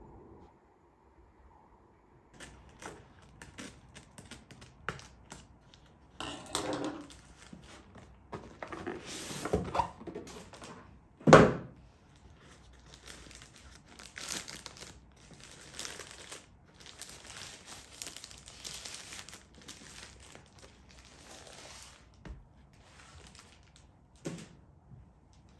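Packaging being handled and opened: cardboard and plastic crinkling and rustling with scattered knocks, and one loud thunk about eleven seconds in.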